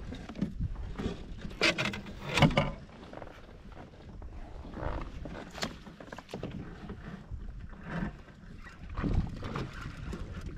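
A largemouth-size bass being landed in a net beside a kayak: irregular splashing and knocks of the net and gear, loudest about two seconds in.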